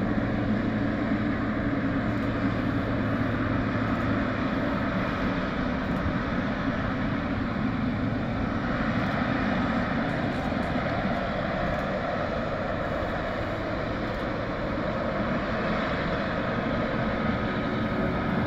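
Boeing 777 freighter's twin jet engines running at taxi power, a steady jet rumble and rush.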